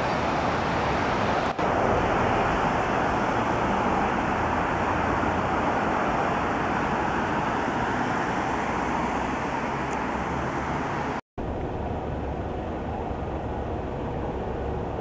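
Road traffic noise on a city street: a steady wash of passing cars' tyre and engine noise, with no siren audible. After an abrupt cut about eleven seconds in, a quieter, steady low rumble continues.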